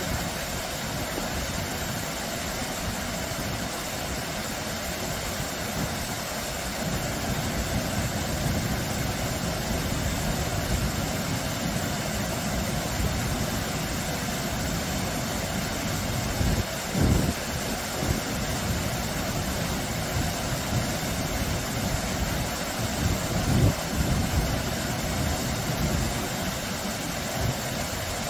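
Small, low waterfall: several streams of water spilling over a rock ledge and splashing into a shallow pool, a steady, even rush of water. A couple of brief low thuds come about two-thirds of the way through and again later.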